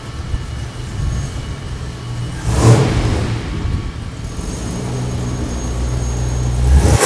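The 1978 Ford F350's 351 Cleveland V8 is running and being revved. There is one sharp blip of revs about two and a half seconds in, then the revs build more slowly to a peak near the end.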